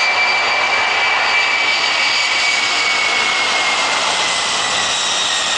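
Aircraft engine noise: a steady, loud rushing hiss with a high whine that slowly drops in pitch.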